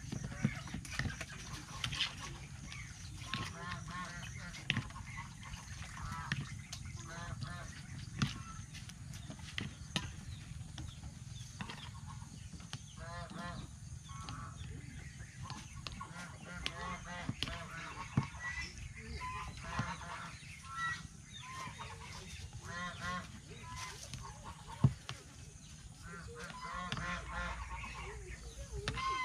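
Domestic waterfowl calling in repeated runs of short calls, with scattered clicks of a metal spoon against a plastic bowl.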